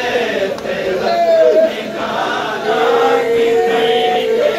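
Men chanting a mourning lament (noha) in voices without instruments, the melody moving and then holding one long note for nearly two seconds.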